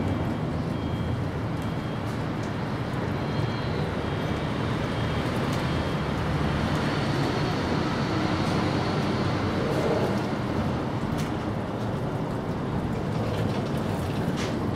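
Steady low rumbling background noise, with a few faint high chirps in the first few seconds and a couple of soft clicks near the end.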